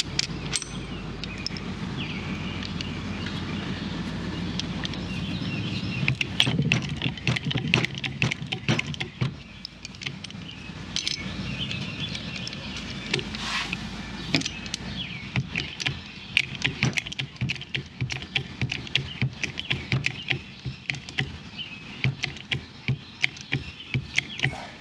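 A truck's engine drones steadily for the first five seconds or so. After that come many quick, irregular clicks and taps of small metal parts being handled.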